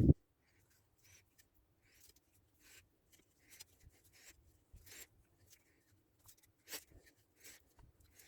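A knock right at the start, then a run of short, faint rubbing strokes by hand, irregular at about two a second.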